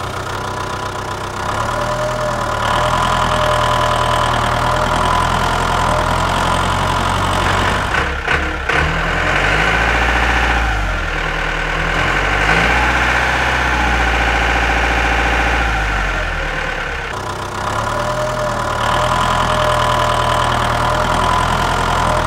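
Diesel tractor engine running steadily, its note dipping and rising again in the middle stretch before settling back, with a steady whine above it.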